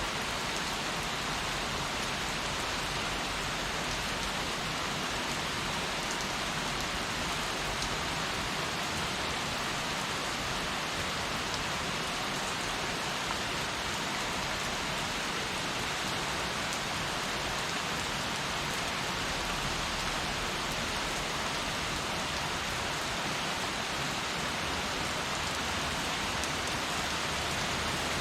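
Heavy rain falling steadily, an even hiss of rain on surfaces with no thunder standing out.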